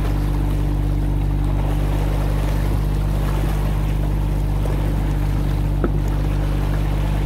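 Boat engine running steadily under way with a constant low hum, with the rush of the wake and water along the hull. A single short click sounds about six seconds in.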